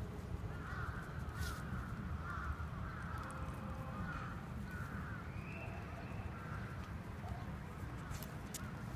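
Birds calling in the background: a run of short, repeated calls, about two a second, thinning out after about six seconds, over a steady low rumble.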